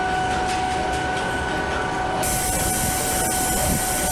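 Automated factory machinery running: a steady mechanical noise with a constant high hum, turning brighter about two seconds in.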